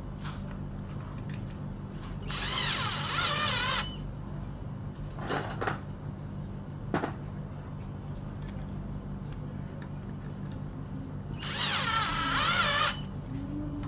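Cordless drill-driver running in two short bursts of about a second and a half each, its motor whine wavering in pitch as it turns screws on a chainsaw's housing. A couple of sharp clicks come between the bursts.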